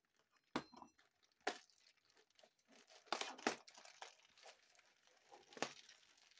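Plastic mailer bag being slit with a knife and torn open, the plastic and the bubble wrap inside crinkling; a few short, sharp rips with soft rustling between.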